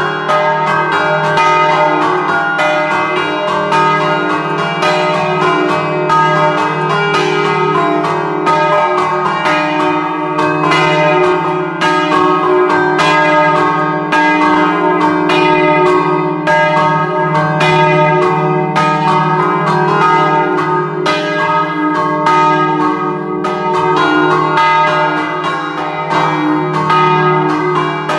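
Three bronze church bells in E-flat, cast by De Poli in 1947, struck rapidly by hand with the bells held still: a Friulian scampanotata, with quick strokes on top of continuous, overlapping ringing.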